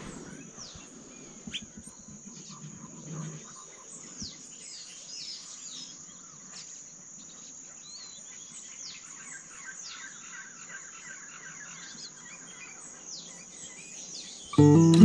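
Birds chirping and calling, many short notes and downward-sweeping calls, over a steady high-pitched insect drone.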